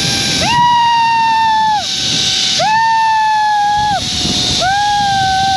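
A ride down a zipline cable: a steady whine and rushing wind run throughout, and over them come three long, high, even tones of about a second and a half each, spaced about a second apart.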